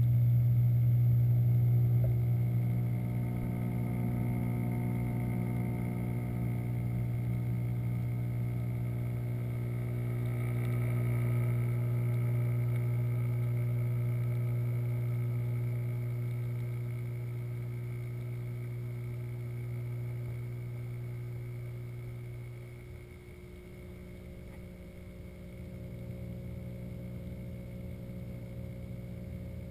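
Steady low electric hum of the aquarium's water pumps, picked up underwater in the tank. It drops in level and thins out about three-quarters of the way through, then partly comes back.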